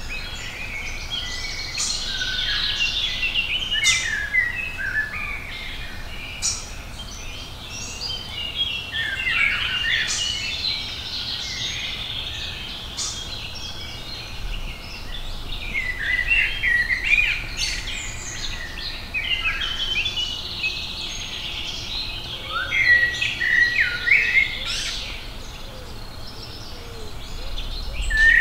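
Woodland birdsong: several birds singing at once in an unbroken chorus of short chirps and whistled phrases.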